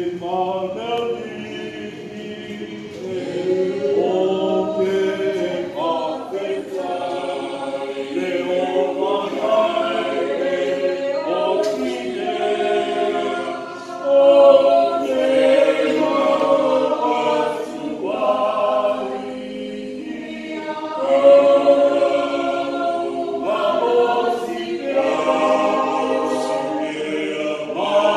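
A church congregation singing a hymn together, in phrases with short breaks between them.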